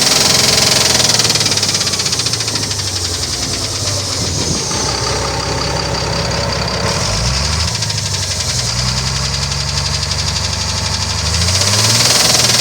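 Engine running with a repetitive knock from somewhere in the engine, the source the owner is asking about. The revs and loudness drop a couple of seconds in, then rise again near the end.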